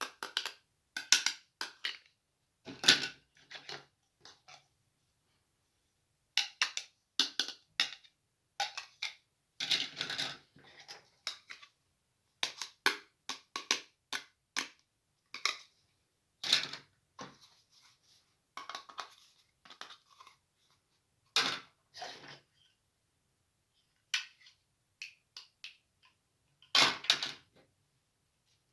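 Small plastic toy kitchen pieces being handled, unboxed and set down: irregular sharp clicks, taps and clatters in short clusters, with brief quiet gaps between them.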